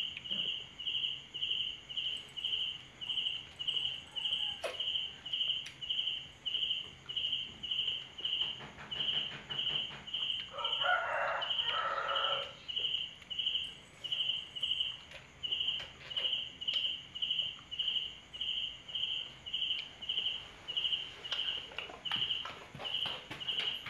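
A rooster crows once, about 11 seconds in, over a steady high-pitched chirp that repeats about twice a second.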